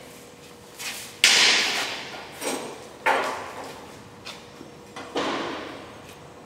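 Arc welder laying three short tack welds on sheet steel, each a crackling burst of about a second that starts sharply and tapers off.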